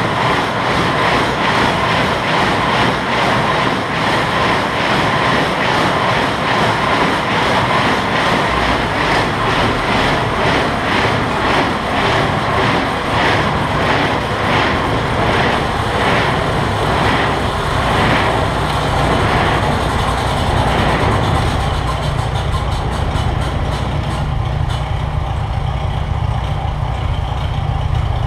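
New Holland 275 baler's finger feed mechanism running at PTO speed off a tractor: a steady, regularly repeating mechanical clatter over the engine. About three-quarters of the way through the clatter dies away, leaving a lower, steady engine hum.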